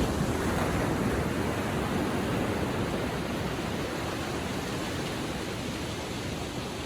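Gentle ocean surf on a beach: a wave washes in near the start and the wash slowly eases off.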